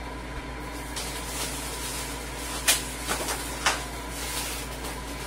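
Plastic packaging rustling as it is handled inside a cardboard box, with a few sharp clicks and taps around the middle, over a steady background hum.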